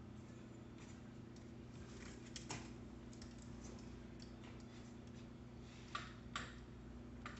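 Scattered light clicks and taps of hands handling bicycle parts during assembly, sharpest twice around six seconds in, over a steady low background hum.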